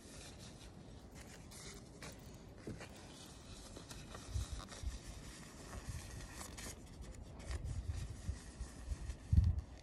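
A thin disposable plastic glove rustling and rubbing as it is pulled onto a hand and worked over the fingers. Dull low thumps come in from about four seconds in, the loudest near the end.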